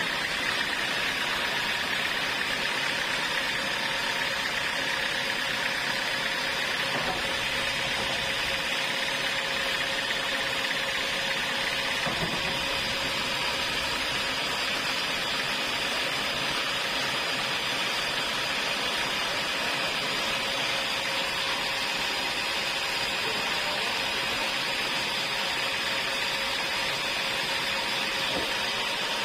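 Sawmill saw running steadily, a constant high whine over a hiss that does not let up.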